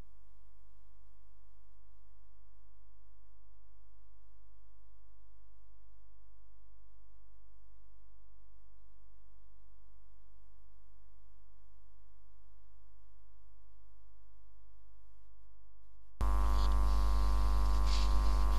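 Steady electrical mains hum with a stack of evenly spaced buzzing overtones. About two seconds before the end it abruptly jumps louder, with a faint hiss added.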